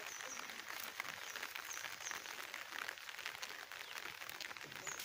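Outdoor ambience: a steady hiss with scattered light ticks and a few short, high chirps.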